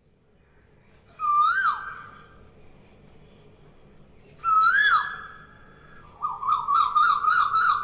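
Whistled, bird-like calls: two short clear notes about three seconds apart, each held briefly and then swooping up and dropping away. Near the end comes a rapid warbling run of quick rising notes, about eight a second.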